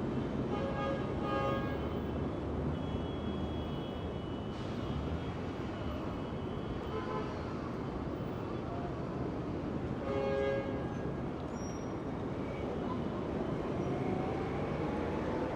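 Heavy street traffic: a steady rumble of passing vehicles, with short horn toots about a second in and again about ten seconds in, and an engine's pitch rising near the end as a vehicle pulls away.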